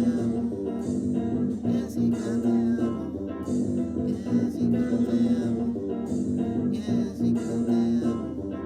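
Music led by guitar, with plucked and strummed notes and a steady bass line.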